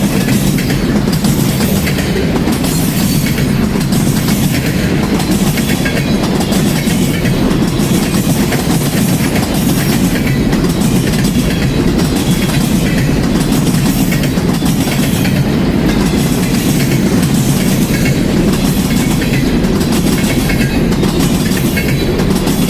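Freight train cars rolling past: a steady, loud rumble with a recurring clickety-clack of wheels over the rail joints.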